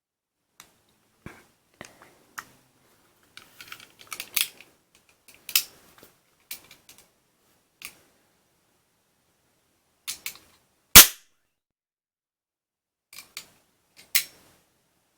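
Toy cap gun revolver firing caps: several sharp cracks, the loudest about eleven seconds in, with lighter clicks in between.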